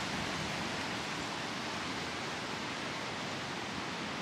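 Steady rushing noise of strong wind, even and without distinct gusts.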